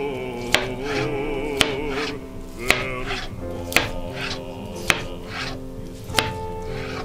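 Kitchen knife slicing through a block of deep-fried tofu and striking the cutting board, a sharp tap about once a second, six in all, over background music with wavering held notes.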